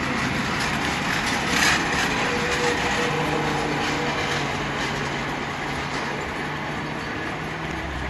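Freight wagons rolling past close by: steel wheels rumbling on the rails, with occasional sharp clicks. The sound eases a little near the end as the last wagons go by.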